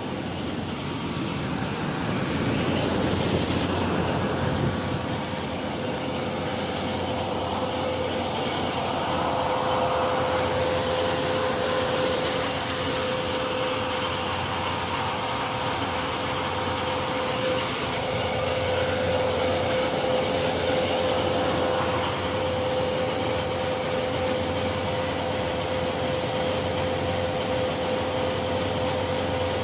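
A steady drone with one held tone over a rushing noise, a little louder in the first few seconds.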